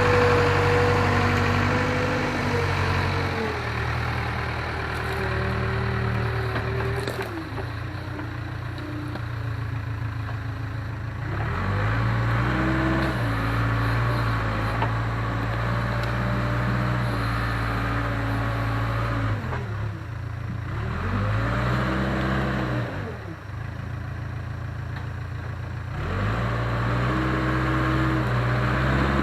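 Case 580K backhoe's diesel engine running under load, its revs rising and falling several times as the machine works.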